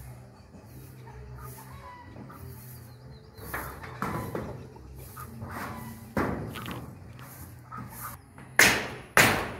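Hammer blows on corrugated metal roofing sheets as they are nailed down. There are a few scattered knocks, then two loud, sharp strikes about half a second apart near the end.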